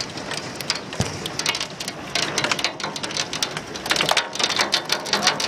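Golf-ball-size hail pelting down: a dense clatter of many hard impacts over a steady rain-like hiss, with one heavier thud about a second in and the hits growing thicker about two seconds in.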